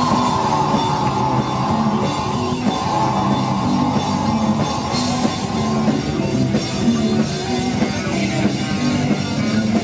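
Live death metal band playing: distorted electric guitars, keyboard and drum kit, loud and steady, with a high held line over roughly the first six seconds.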